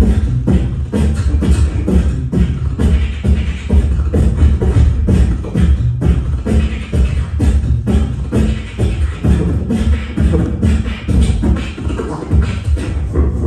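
Live solo beatboxing into a handheld microphone: a continuous fast beat of vocal kick drums with heavy bass, cut through by sharp snare and hi-hat clicks.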